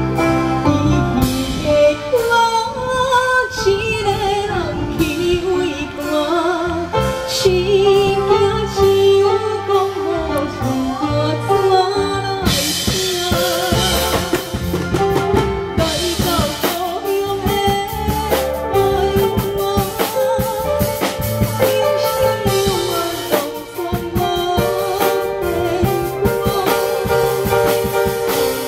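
A woman sings a Taiwanese Hokkien song live into a microphone over a backing band or track with a drum kit. The cymbals come up strongly about twelve seconds in.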